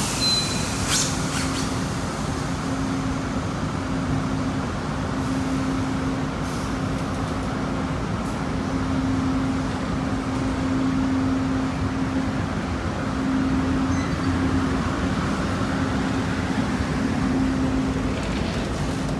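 Diesel locomotive running: a low rumble with a single steady hum that cuts in and out irregularly, every second or two.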